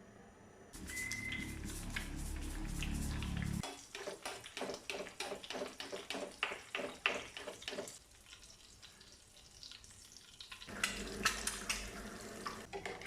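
Eggs frying in hot oil, sizzling with rapid crackling pops. A low steady rush runs for the first few seconds, and a stretch of crackling comes again near the end.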